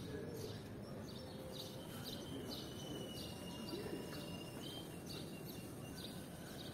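Small birds chirping repeatedly, short high chirps about two a second, over faint steady outdoor ambience. A thin steady high tone runs for about two seconds in the middle.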